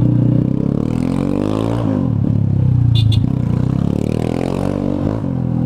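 Yamaha Fazer 250's single-cylinder engine through a straight pipe with no muffler, heard from the rider's seat. It revs up and eases off twice in stop-and-go traffic, its pitch rising and falling each time.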